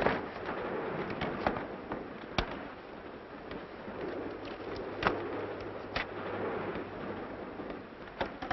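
Railway carriage running, heard from inside the compartment: a steady rumble with sharp clicks and knocks every second or two at irregular intervals, the loudest right at the start.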